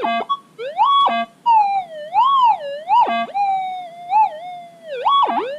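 Minelab GPX 4800 pulse-induction metal detector's tone through a loudspeaker, a steady hum that keeps warbling up and down in pitch, with a few short buzzy blips, as the coil is passed over a bobby pin.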